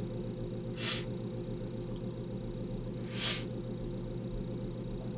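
Two short breaths, about two seconds apart, over a steady low hum.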